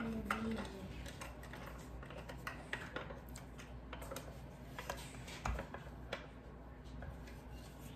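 A hand screwdriver driving the screw that fastens the handle onto a frying pan, giving faint, irregular clicks and small taps as the tool turns.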